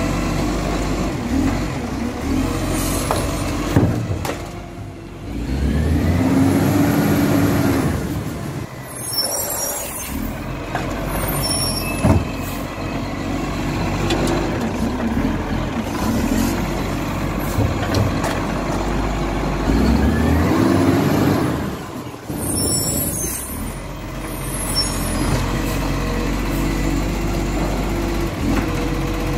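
Iveco side-loader garbage truck's diesel engine running, revving up twice as the truck works its bin-lifting arm and pulls off to the next bin, each time followed by a short hiss of air from the air brakes.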